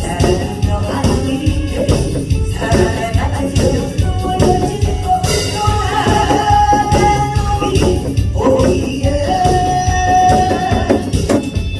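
A song sung over loud accompaniment with a steady beat and jingling tambourine, the melody holding long notes, including one a little before halfway and another near the end.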